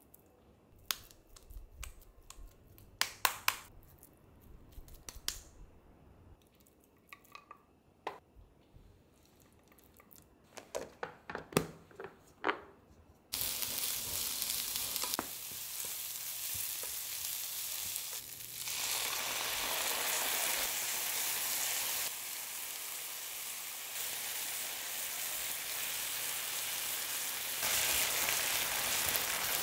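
Scattered sharp slaps and taps of ground meat being shaped into a patty by hand. About 13 seconds in, sliced onions start sizzling steadily in a nonstick frying pan, stirred with a wooden spatula. The sizzle grows louder near the end, once a sauce has gone into the pan.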